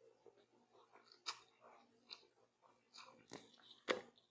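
Faint close-up chewing of a mouthful of noodles, with small wet mouth sounds and a few sharp clicks, the loudest near the end.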